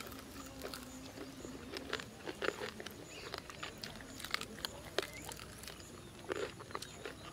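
A person biting into and chewing crisp fried rabbit pakora, with scattered soft crunches and clicks at irregular intervals.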